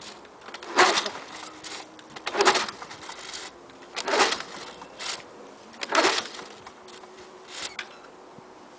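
Recoil pull-starter of a 1987 Lawn-Boy 8243AE mower yanked five times, each pull a short whirring crank about every second and a half to two seconds. The engine does not catch; this is a choked cold start.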